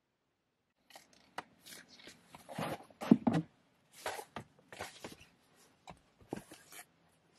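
A MacBook being shut and slipped into a canvas tote bag: fabric rustling and light handling knocks, the loudest knock about three seconds in.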